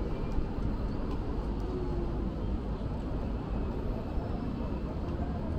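Steady outdoor city street ambience: a continuous low rumble with faint, indistinct voices in the background.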